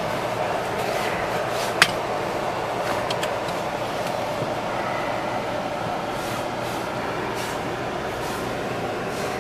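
Steady running noise inside a Ford car's cabin, with a sharp click about two seconds in and a couple of fainter clicks soon after.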